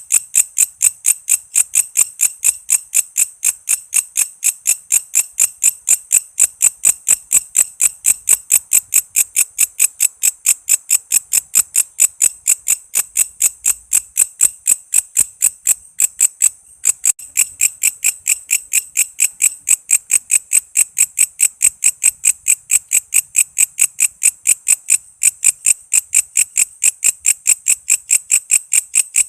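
Walang kece insect singing: a steady train of sharp, high-pitched chirps, about three to four a second. The rhythm falters briefly about halfway through.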